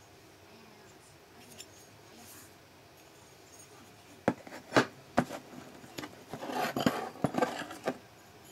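Small metal ignition parts, a points breaker plate and its cover, clinking and scraping against each other as they are handled. There are a few sharp clicks about four to five seconds in, then a burst of rubbing and clinks.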